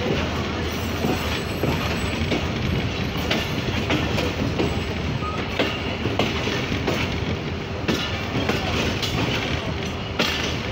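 Passenger train running on the rails: a steady rumble with wheels clicking over rail joints every second or so.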